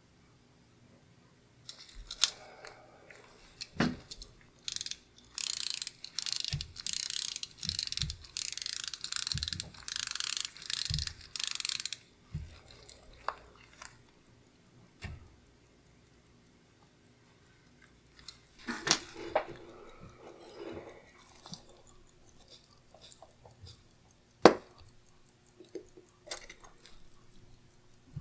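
Pocket watch being wound by its crown: a run of about a dozen short rasping ratchet strokes, roughly two a second. Then light handling clicks, a faint fast even ticking from the running movement, and one sharp click about three-quarters of the way through.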